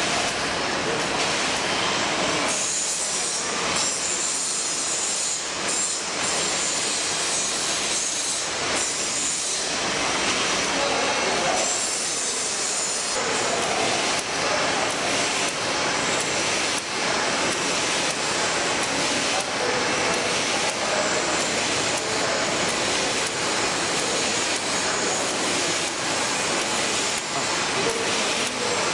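Tymi Octans-126T automatic thermal laminator running in production, a steady dense mechanical clatter and hiss from its sheet feeder and rollers as printed sheets pass through.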